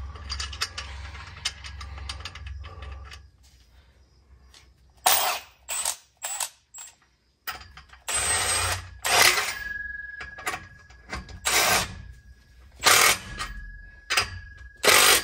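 Hand ratchet wrench clicking as the U-bolt clamp nuts on an exhaust pipe are run down. A fast run of clicks for the first three seconds, then a pause, then short runs of ratcheting every second or two.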